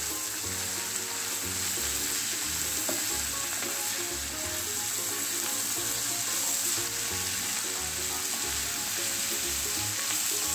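Chopped vegetables (cabbage, capsicum, carrot, onion) stir-frying in a non-stick pan with a steady sizzling hiss, stirred and tossed with a spatula.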